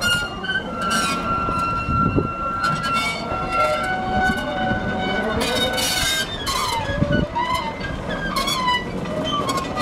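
Small steam tank locomotive shunting, slowly propelling a carriage: a steady whistle tone is held for about three seconds from half a second in, with the rumble and knocks of engine and coach moving on the rails.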